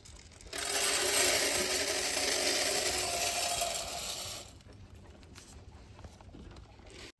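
Rabbit feed pellets poured into a galvanized metal feeder: a dense rattling clatter of small hard pieces on metal, starting about half a second in and lasting about four seconds.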